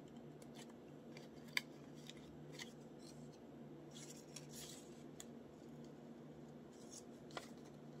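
Scissors snipping through paper in short, irregular cuts, rough-cutting a printed leaf shape, with the sharpest snip about a second and a half in.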